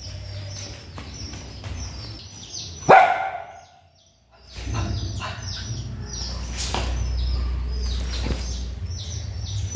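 A small dog barks once, loudly and sharply, about three seconds in. Small birds chirp rapidly and high-pitched behind it throughout.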